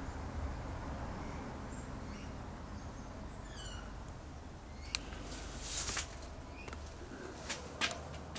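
Birds calling outside the shed, a few short falling chirps, over a low steady rumble. A few sharp knocks and scuffs come in the second half, from footsteps on the debris-strewn floor.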